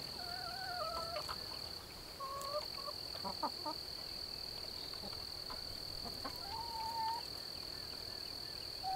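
Chickens giving a few short, drawn-out calls: one near the start, one about two seconds in and one around seven seconds in. Under them runs a steady high insect drone.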